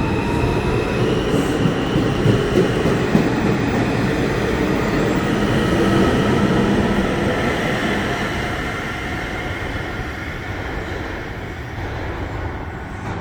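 New York City subway train running on the tracks, a heavy rumble with faint wheel squeal over it, growing louder to about halfway and then slowly easing off.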